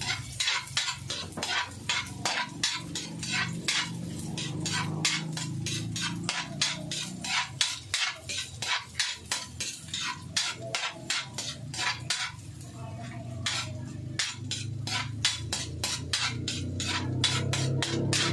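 Metal spatula scraping and clinking against an aluminium wok at about four strokes a second as chopped ginger is stirred and sautéed in hot oil, pausing briefly about twelve seconds in. A low steady hum runs underneath.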